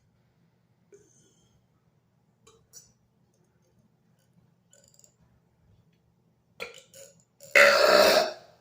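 A man's belch forced up from his stomach without any drink, after a few faint clicks in the throat: one loud, long burp near the end, lasting about a second.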